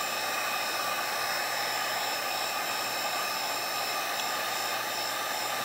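Cheap Wagner heat gun on its low setting, its fan blowing steadily with a faint steady whine, as it heats shrink wrap on an 18650 lithium-ion cell.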